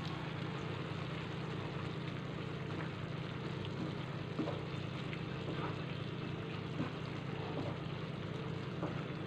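A wooden spatula stirring beans, tomato and chana dal in a frying pan, with a few soft knocks against the pan, over a steady low hum.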